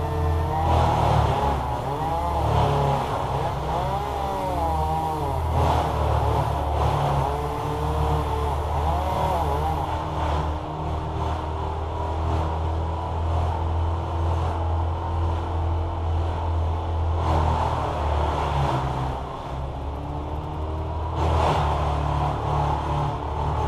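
An engine running continuously, its pitch wavering up and down as the speed or load changes.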